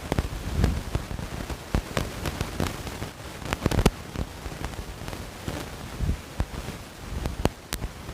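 Kitchen utensils clinking and knocking, a dozen or so irregular sharp clicks and taps, as the freshly ground chutney is handled.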